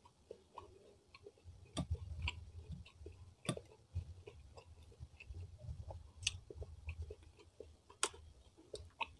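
Close-miked eating by hand: fingers working rice and fried fish on a plate, and chewing, with sharp clicks every second or two.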